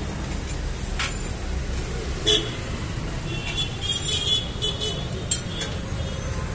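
Steady rumble of road traffic, with a short vehicle horn toot about two seconds in. A few sharp metallic clinks come from work on a spoked motorcycle wheel hub.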